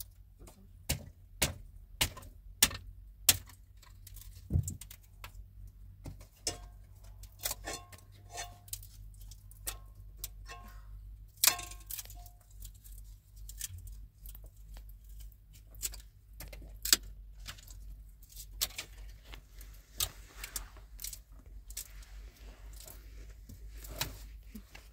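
A run of sharp knocks, evenly spaced at a little under two a second for the first few seconds, then scattered knocks and clinks, some with a short metallic ring.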